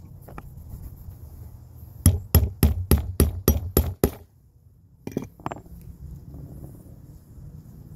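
Hammer striking in quick succession during leatherwork on an axe sheath. There are eight sharp blows at about four a second, then two more about a second later.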